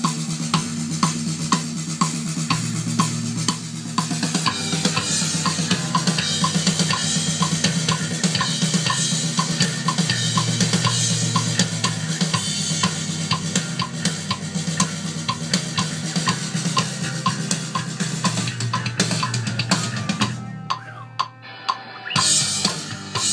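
Drum kit and electric bass guitar playing together: a steady bass line in stepped notes under a regular ticking beat. About four seconds in the cymbals and full kit come in, and the playing briefly drops back about three seconds before the end, then resumes.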